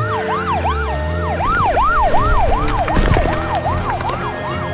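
Emergency vehicle siren sounding in quick rise-and-fall sweeps, about three a second. There is a brief clatter about three seconds in.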